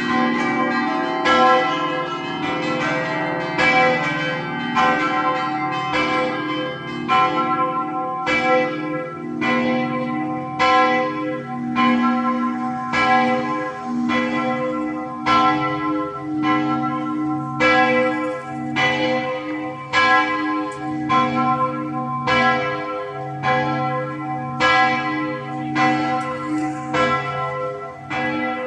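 Several church bells ringing together in a continuous peal, stroke after stroke about once or twice a second, each stroke's ring overlapping the next.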